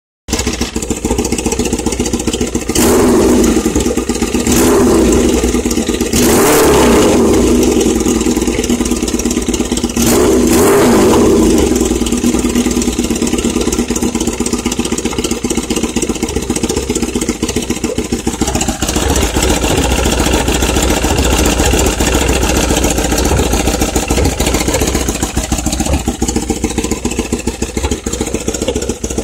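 Kawasaki ZX-7R's inline-four engine, revved four times in the first twelve seconds and then settling to an idle that sags briefly twice. The engine is running rich.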